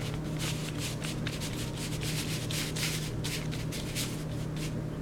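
Paint being rubbed and spread across a surface: an uneven run of short, scratchy strokes over a steady low hum.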